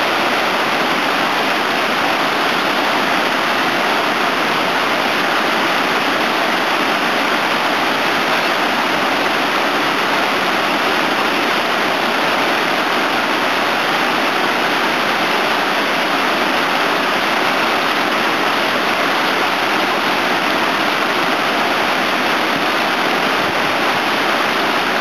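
Whitewater rapids rushing: a steady, even noise of churning, foaming river water that stays the same throughout.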